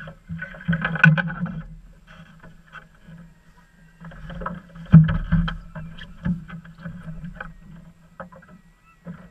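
Muffled, irregular knocking and slapping aboard a small fishing boat at rest on the water, with a louder thump about five seconds in.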